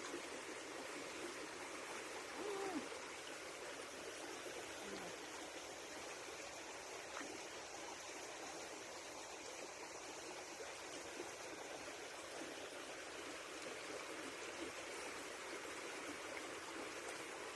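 A short, low animal call about two and a half seconds in, over a steady hiss like running water.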